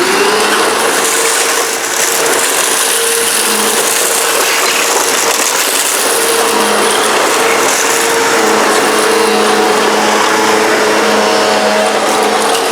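Bissell PowerForce upright vacuum switched on: the motor spins up within about half a second, then runs loudly and steadily, a held whine over rushing air.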